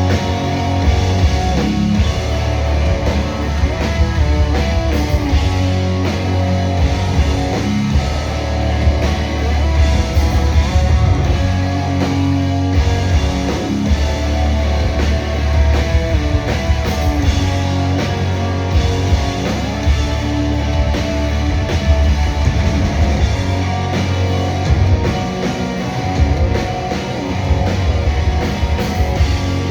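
Rock band playing live: electric guitars, bass and drum kit in a loud instrumental passage with no singing.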